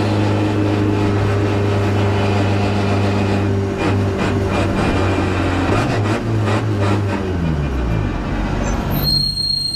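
Volkswagen Golf GTI TCR race car's turbocharged four-cylinder engine running at a steady pitch, heard from inside the stripped cabin, with a few knocks and rattles. About eight seconds in the engine note falls away, and a high, steady tone sounds near the end.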